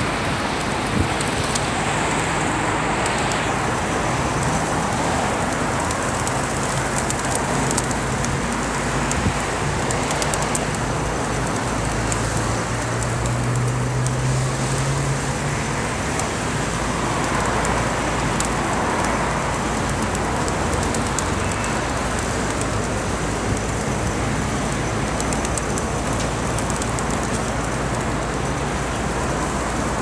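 Steady rustle of a large flock of feral pigeons flapping and shuffling as they feed, over the hum of road traffic. A vehicle engine's hum swells and fades about halfway through.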